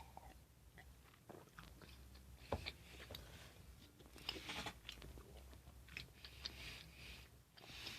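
A person chewing a mouthful of chicken sandwich close to the microphone: faint, irregular mouth clicks and soft crunching, with a sharper click about two and a half seconds in.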